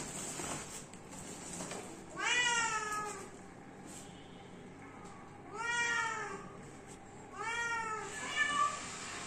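Kitten meowing from inside its covered cage: three drawn-out meows, then a shorter one near the end.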